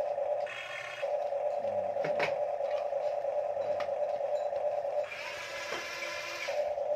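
HUINA radio-controlled toy excavator's electric motors and gearboxes whirring steadily. The sound switches twice to a higher gear whine, briefly about half a second in and for over a second near the end, as another function of the arm is driven. A few light plastic clicks come in between.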